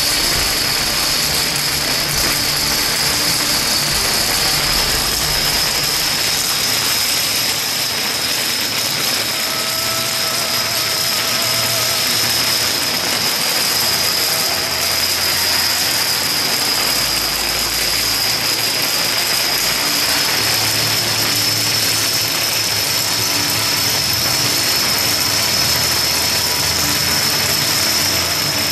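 A long wall of small plastic dominoes toppling in a continuous chain, a steady dense clatter of thousands of pieces tumbling onto a hard floor.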